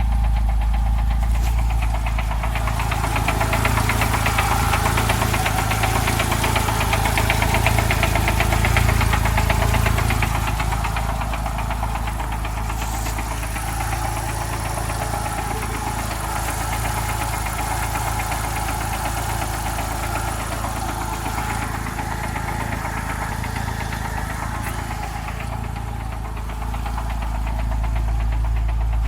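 1997 Jeep Wrangler TJ's 2.5L four-cylinder engine running steadily with a rhythmic knock. The owner traced the knock to water in the manual transmission after a river crossing, which destroyed the transmission.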